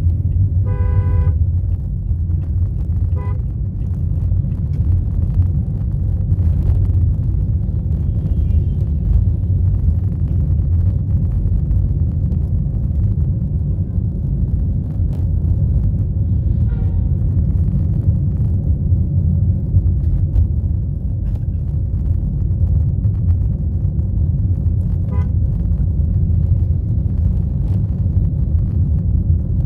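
Steady low rumble of a moving vehicle in road traffic, with car horns honking: a loud blast about a second in, another just after, and fainter honks later.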